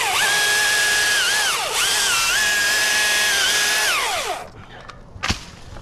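Husqvarna T540i battery chainsaw running flat out as it cuts through a dead birch limb, a steady high motor whine that drops off and picks up again once partway through and winds down about four seconds in. A single sharp knock follows.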